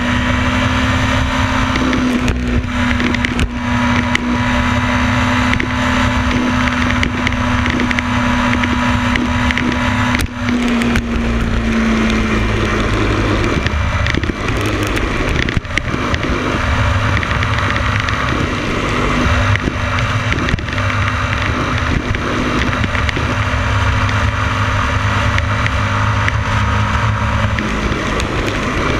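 Motorcycle engine running at steady road speed under heavy wind rush on the camera microphone. The engine note holds steady, then drops about twelve seconds in as the throttle is eased, with occasional bumps and wind buffets.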